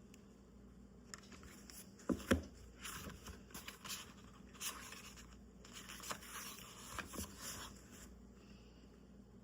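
Pages of a thick hardcover book being handled and turned: a couple of soft thumps about two seconds in, then several seconds of papery rustling and sliding that stops about eight seconds in.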